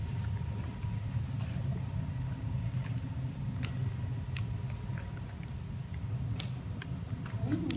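Steady low rumble of room noise with a faint thin hum, broken by a few faint sharp clicks and taps.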